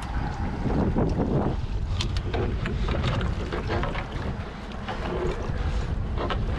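Wind buffeting the microphone over sea water sloshing and splashing around the boat's stern, with scattered small clicks and knocks.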